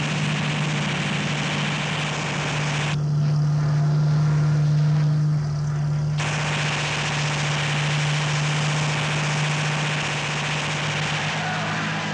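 Propeller fighter plane's piston engine droning steadily on a low pass, with a strong low steady hum under a rushing noise. The rushing noise thins out for about three seconds a few seconds in, then returns.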